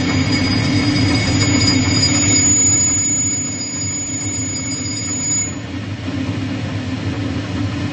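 Automated drilling machine's spindle running while a 2 mm drill bit cuts into a metal cylinder: a steady motor hum with a thin high whine over it that stops about five and a half seconds in.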